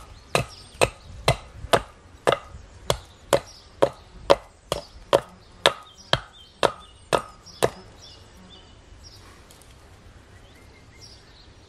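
Hatchet chopping at the base of an upright birch pole stood on a wooden chopping block: about sixteen sharp wooden chops, roughly two a second, stopping about eight seconds in.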